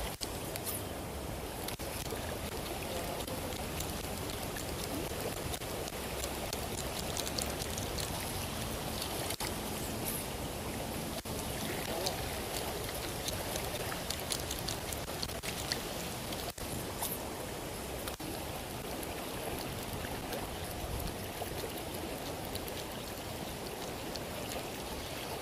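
Shallow river water running steadily over stones and sand, an even rushing noise with a few faint small clicks.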